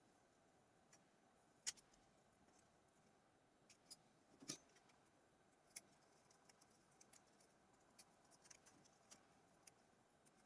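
Near silence with scattered faint clicks and taps of a small tool working the glued display loose from a mobile phone's frame, the loudest about four and a half seconds in.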